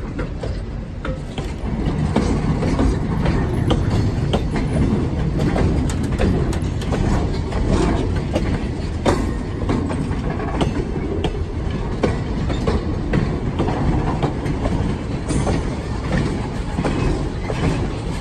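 Loaded flatcars of a freight train rolling past close by: a steady low rumble of wheels on rail, with frequent sharp clicks as the wheels cross rail joints. It gets a little louder about two seconds in.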